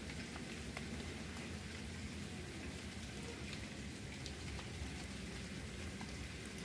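Light rain falling: a steady patter with scattered faint drop ticks.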